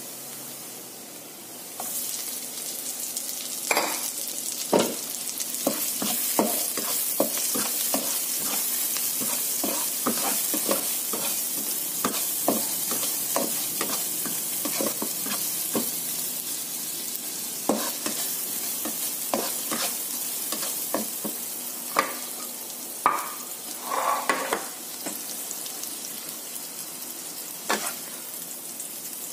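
Chopped vegetables sizzling in oil in a nonstick frying pan, stirred with a spatula that scrapes and knocks against the pan many times. The sizzle gets louder about two seconds in.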